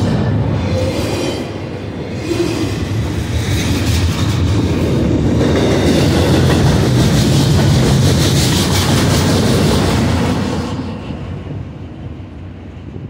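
Double-stack container well cars of a BNSF intermodal freight train rolling past close by, with loud, steady wheel-on-rail noise. The noise falls away about eleven seconds in as the last car passes and the train moves off.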